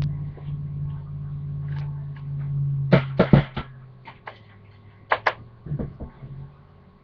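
Sharp clicks and knocks of hard objects being handled: a quick run of them about three seconds in and a pair about five seconds in. Under them a low steady hum fades out.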